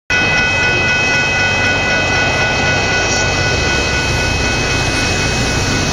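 Diesel freight locomotive approaching a level crossing at speed: a loud, steady engine drone with several steady high tones over it.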